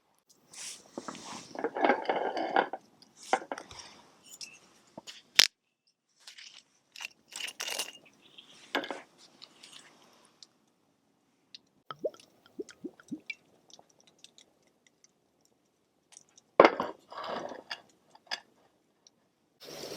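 A person chewing food close to the microphone, in irregular short bursts, with a few sharp clicks and scrapes of utensils.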